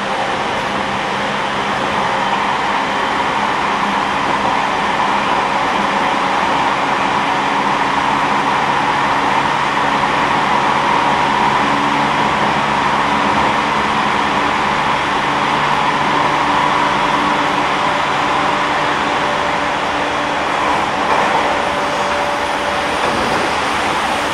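JR East E231-series electric train running at a steady speed: wheels rumbling on the rails, with a few steady hum tones under the noise.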